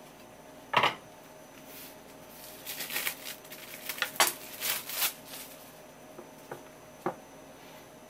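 A yellow cloth wiping a wooden cutting board: a sharp knock about a second in, then a few seconds of rubbing and scraping, and a lighter knock near the end.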